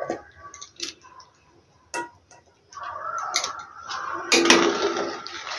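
Steel spatula clinking and scraping against an iron kadhai while stirring fried small fish into mustard gravy. There are a few separate taps in the first half, then a stretch of continuous scraping from about halfway, with the loudest knocks near the end.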